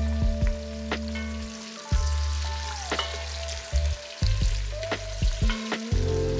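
Chopped onion, carrot and celery sizzling in oil in a stainless steel pot while being stirred with a wooden spoon. Sharp knocks and scrapes of the spoon against the pot sound every second or so over a steady sizzle, with soft background music underneath.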